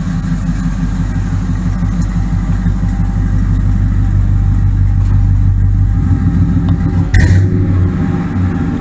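Engine of a customised classic pickup truck idling steadily, with one sharp knock about seven seconds in.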